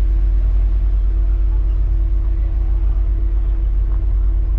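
Mini Cooper Countryman All4 driving, a steady heavy low rumble with a constant drone tone over it.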